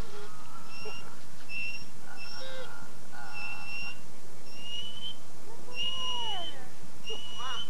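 An animal in a wire-mesh pen giving short, high-pitched, whistle-like cries, about one a second, with a lower, falling cry past the middle.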